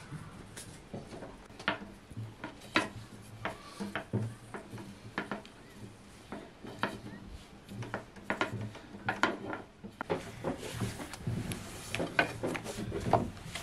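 Long thin wooden rolling pin rolling dough out into a thin sheet on a wooden tabletop, with irregular knocks and clatters of the pin on the table and the rub of the dough against the wood.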